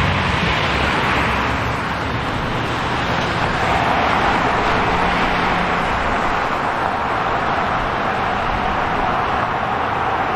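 City street traffic: a steady, loud wash of car tyre and engine noise with a low hum underneath.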